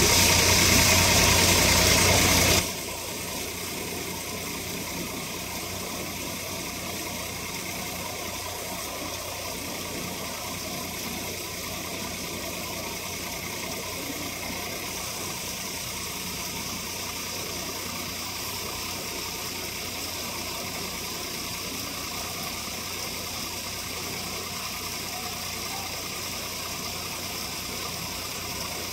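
A loud rushing hiss for the first two and a half seconds, then the steady running of a Scania coach's diesel engine at idle.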